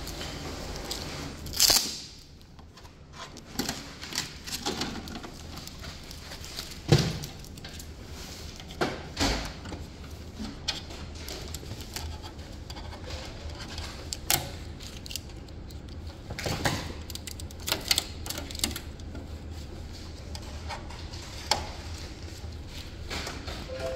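Packing tape being peeled off an HP DesignJet T830 plotter, with irregular clicks, knocks and short ripping sounds as its plastic panels are handled.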